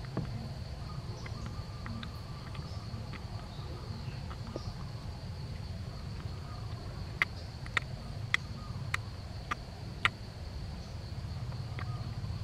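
Baby yellow-cheeked gibbon suckling at a milk bottle's teat: a run of about six sharp mouth clicks about half a second apart, some seven seconds in. Underneath are a steady high insect drone and a low rumble.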